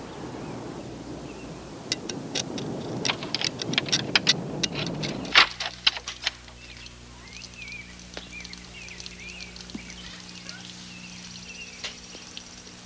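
Car driving with a steady rumble, joined by a quick run of sharp clicks and knocks, the loudest about five seconds in. Then the rumble cuts off, leaving a low steady hum and birds chirping now and then.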